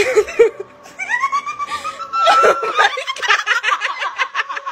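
A person laughing. First comes a drawn-out high squeal that rises in pitch, then a quick run of short laughs, several a second.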